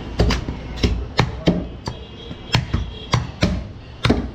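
Butcher's cleaver chopping goat leg: a dozen or so sharp strikes at an uneven pace of two or three a second.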